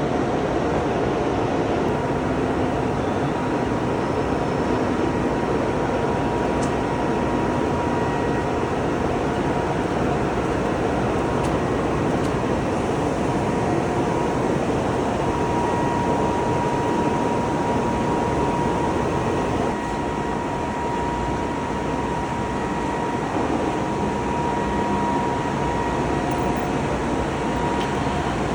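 CNC glass-cutting machinery running steadily: a continuous mechanical noise with a high, even whine that grows stronger and fades a few times, and a slight drop in level about two-thirds of the way through.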